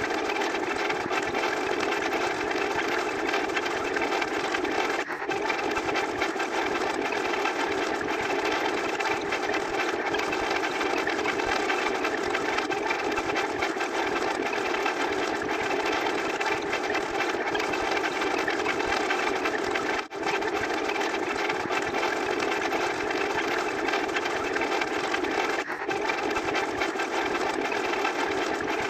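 Steady, dense buzzing sound effect that runs on without a break in character, with brief dropouts about 5, 20 and 26 seconds in.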